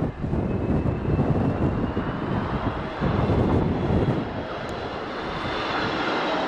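Jet engines of an Airbus A320neo (CFM LEAP-1A turbofans) coming in to land, a thin turbine whine that drifts slowly upward over a heavy rumble. Strong wind gusts buffet the microphone.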